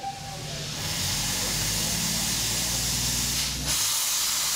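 Steam locomotive hissing steadily as steam escapes, the hiss dropping out briefly near the end. The tail of a steam whistle fades away in the first moment.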